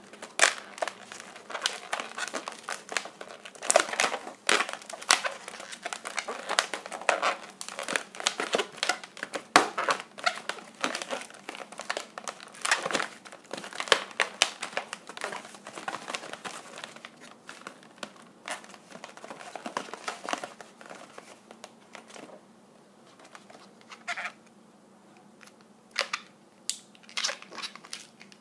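Inflated latex modelling balloons being twisted and squeezed by hand: irregular rubbing and crinkling of the latex, dense for most of the time and thinning out to scattered strokes in the last third.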